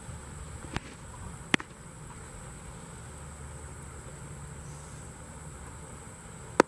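Insects droning steadily at a high pitch over a low outdoor rumble, broken by sharp smacks: a light one just under a second in, a loud one about a second and a half in as the pitched baseball hits its target, and another loud one near the end.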